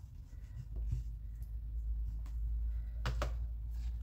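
Handling sounds at a worktable: a low rumble, then a few sharp clicks near the end as oil pastel sticks are set down in their metal tray.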